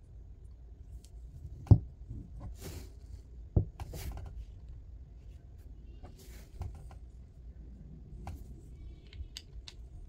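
Handling noise from a Wuben L1 flashlight: two sharp knocks, the first a little under two seconds in and the second about two seconds later, among lighter clicks and brief scrapes.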